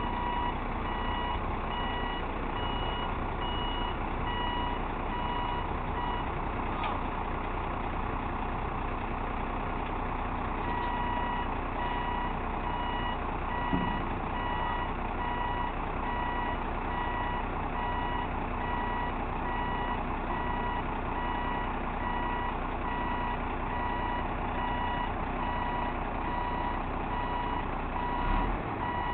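Hook-lift truck's reverse warning beeper sounding in a steady repeated beep over its running engine; the beeping stops about six seconds in and starts again a few seconds later. A brief knock about halfway and a low thump near the end.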